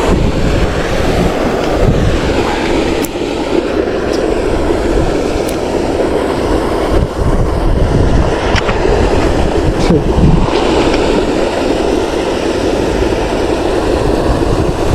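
Wind buffeting the microphone: a loud, gusting rumble, with a few faint clicks scattered through it.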